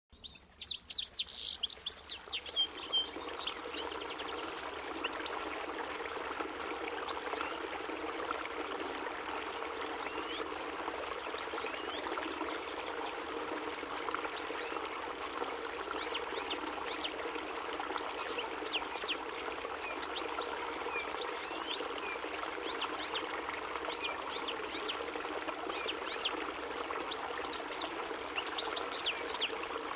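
European goldfinch (chardonneret) singing: quick twittering notes and short sliding chirps, densest in the first couple of seconds and again near the end, over a steady background hiss.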